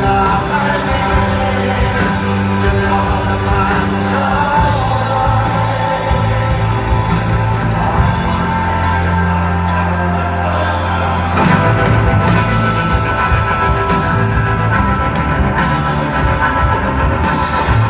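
Rock music from a band, with sustained bass and chords over steady drums; it gets fuller and louder about two-thirds of the way through.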